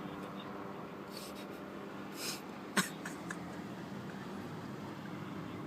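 Steady low hum of an idling car heard from inside the cabin, with two short breathy noises and a sharp click about three seconds in.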